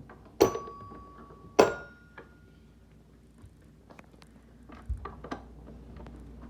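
Two sharp metallic clinks, each with a brief ringing tone, then a few softer scattered clicks: a hand tool and screws knocking against the stool's parts while a screw is being tightened.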